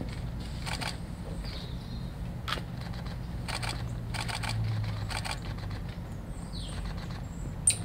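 Squirrel monkeys rummaging in hanging treat stockings: short rustling scrabbles about once a second, with a few brief high chirps over a low steady hum and a sharp click near the end.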